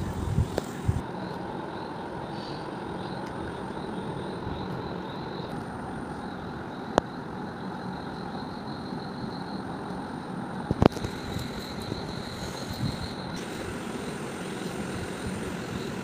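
Steady background noise with two sharp clicks, about seven and eleven seconds in.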